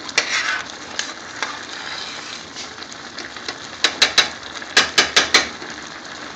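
Pot of basmati rice boiling with a steady bubbling hiss. About four seconds in, a metal spoon stirring the rice clinks sharply against the stainless steel pot: three quick knocks, then four more just after.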